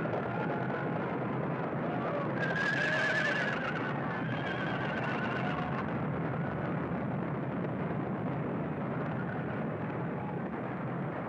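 A horse whinnying loudly about two and a half seconds in, a wavering cry lasting about a second, over a steady, dense din, with fainter cries after it.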